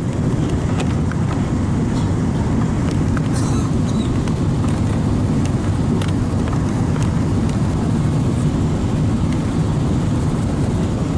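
Boeing 777-300ER cabin noise on approach, heard from a window seat behind the wing: the GE90 engines and the airflow over the airframe make a loud, steady low noise. A few faint clicks sit on top of it.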